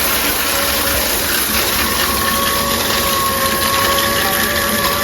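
Water spraying steadily from a Brilliant Ideas color-changing LED shower head, with a faint steady whine underneath.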